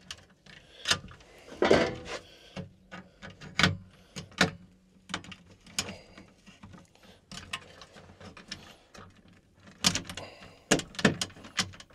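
Irregular clicks, taps and knocks of a screwdriver, wires and a replacement relay being handled and fitted into a well pump's control box, with a cluster of sharper clicks about ten seconds in.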